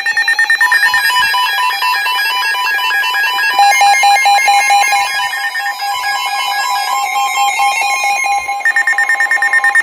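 Emergency Alert System activation for a flood warning: buzzing digital header bursts open it, then a steady alert tone sounds, and another stretch of data buzz comes near the end.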